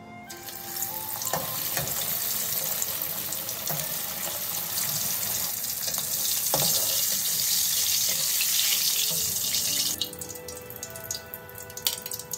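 Salmon head deep-frying in hot oil in a wok: a loud, steady sizzle starts as the fish goes in. About ten seconds in it drops to light crackling and popping.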